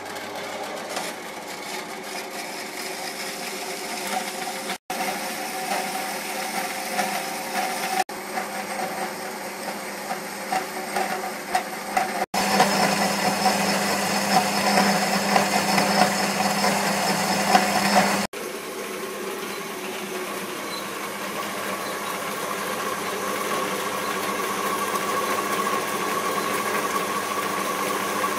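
Metal-cutting band saw running and cutting through a metal bar, a steady machine drone with a rasping cut. The sound breaks off for a moment four times and is loudest in the middle stretch.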